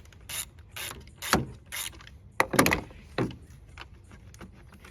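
A ratchet wrench loosening the positive battery terminal clamp, in short rasping strokes about two a second, then a few louder metal clinks as the work goes on; it quietens to small clicks in the last couple of seconds.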